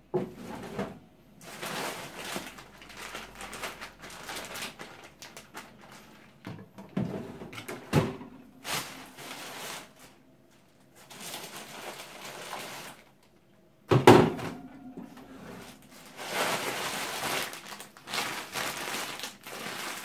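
Freezer being emptied by hand: plastic bags and packaging rustling in stretches, with intermittent knocks of items and freezer drawers, the loudest a sharp thump about 14 seconds in.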